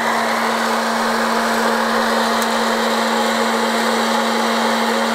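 Electric hot-air popcorn machine running: its blower fan makes a steady hum and rush of hot air.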